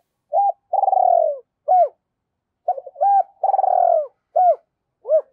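Spotted dove cooing: two song phrases about a second apart, each made of short coos around one longer, falling, rolling coo. It is the call of a caged decoy cu gáy, used to provoke wild doves.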